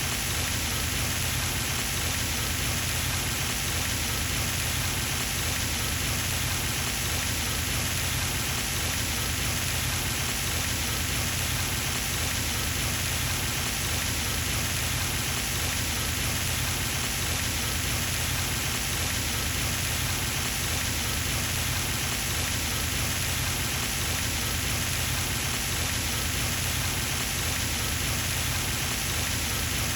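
Pond fountain splashing without a break: a constant rain-like hiss of water falling back onto the pond's surface, over a steady low rumble.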